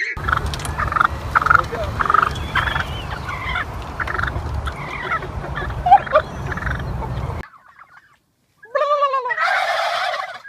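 Turkeys gobbling in repeated short bursts over a low rumble. The sound cuts off about seven seconds in, and after a brief gap more rapid, warbling gobbling starts.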